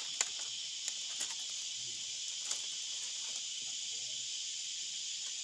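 A steady high-pitched insect drone, with a few light clicks and rustles of thin bamboo strips being threaded into a woven basket.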